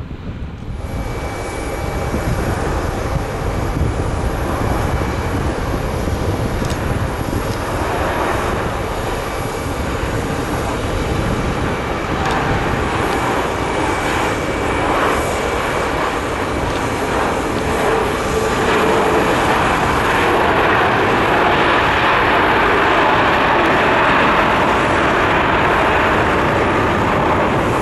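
Boeing 737 MAX 8-200 jet airliner's CFM LEAP-1B engines on landing: a steady jet rush with a faint high whistle, growing louder in the second half.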